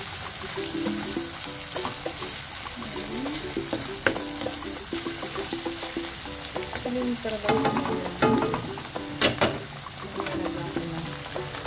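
Chopped hot dog, bacon, mushrooms and vegetables sizzling in oil in a black wok while a spatula stirs them, the spatula scraping and knocking against the pan, most busily from about seven and a half to nine and a half seconds in.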